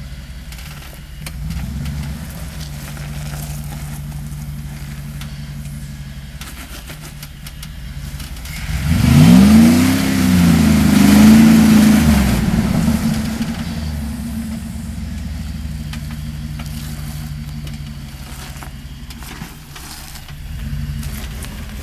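4x4 engine idling, then revved hard for about three seconds in the middle, its pitch rising, dipping and rising again before it settles back to idle, as the vehicle is driven up a rock obstacle.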